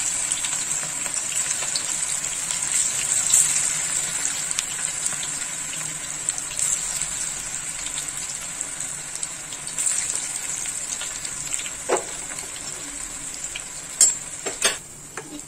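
Banana-flower and green gram pakodas deep-frying in hot oil in a kadai: a steady sizzling hiss that slowly fades. Near the end come a few sharp knocks, the loudest of them two close together, typical of a metal utensil against the pan.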